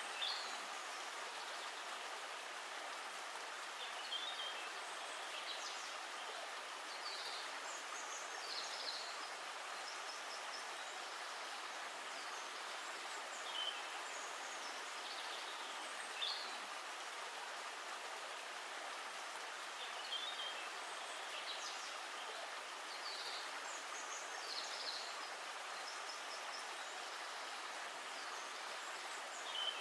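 Steady rushing of running water, with short high bird chirps every few seconds over it.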